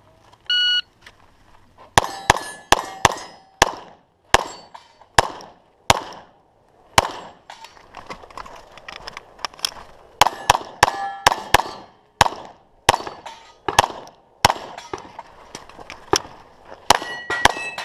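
Shot-timer start beep, then a string of 9mm shots from a Glock 34 Gen4 pistol fired in quick clusters, with steel target plates ringing on the hits. There is a pause of about two seconds near the middle of the string.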